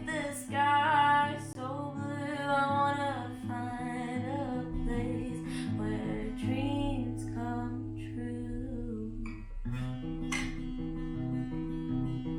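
Music: a strummed acoustic guitar with a singing voice over it; the voice stops about nine seconds in and the guitar plays on.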